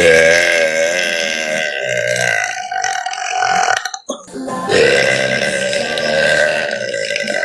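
A young woman burping: two loud, long belches, the first lasting about four seconds, the second starting after a short break and still going at the end.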